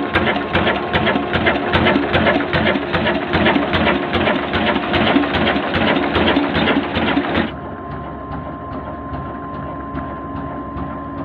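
Slow-running 22 HP Mughal 'kala engine' diesel running under way, a loud, fast, even mechanical clatter of knocks. About seven seconds in the sound drops abruptly to a quieter, steady drone with a faint thin whine.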